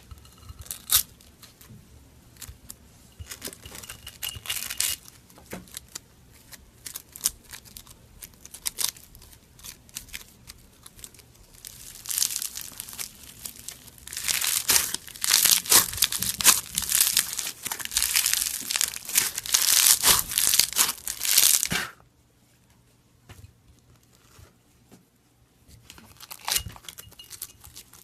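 Crisp crackling and crunching as a crunchy, brittle material is pressed and crushed: scattered cracks and clicks at first, then a dense, loud run of crackling from about halfway that cuts off suddenly, with more crackling starting again near the end.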